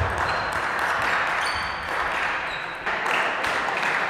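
Table tennis rally: the ball clicks off the bats and the table several times at an uneven pace, over a steady hiss of hall noise.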